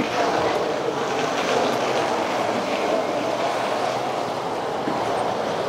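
Steady traffic noise of a city street, an even rush with no clear rhythm.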